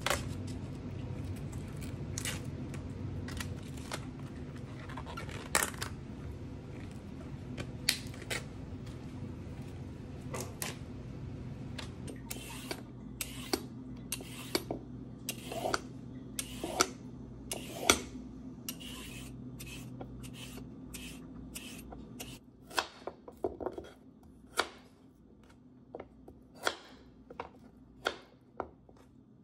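Cabbage leaves being torn off by hand, then a vegetable peeler scraping down a carrot in short strokes, then a knife chopping the carrot into chunks on a cutting board, with sharp knocks roughly every half second to second near the end. A low steady hum runs under the first two-thirds and stops.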